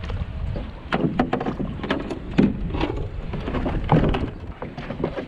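A series of irregular knocks and thumps over a steady low rumble of wind on the microphone.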